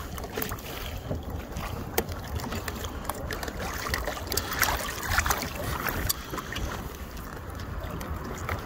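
Wind buffeting the microphone over water lapping and splashing around a hooked angel shark at the surface beside a kayak, with scattered small clicks and knocks.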